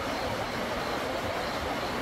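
Steady rushing of a mountain stream, an even unbroken hiss, with a faint high-pitched chirp repeating a few times a second above it.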